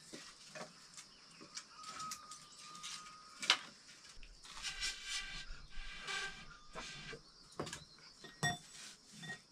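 Scattered light knocks and clicks, the sharpest about three and a half seconds in, with a short buzzy animal call around the middle.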